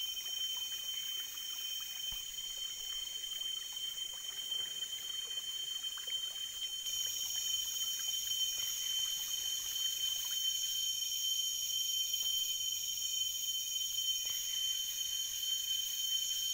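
Chorus of rainforest insects shrilling steadily at several high pitches, one of them growing louder about seven seconds in, with faint scattered drips of water after rain.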